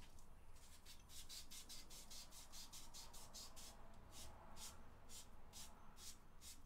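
Emery cloth rubbing on an anodized steering shaft as the shaft is turned by hand, sanding off its gold anodized coating. Faint, even rasping strokes, about four or five a second.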